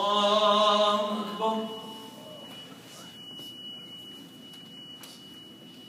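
A man's voice chanting a long, drawn-out takbir ("Allahu akbar") for about the first two seconds, the signal to rise from prostration. After it a faint, steady high-pitched tone holds.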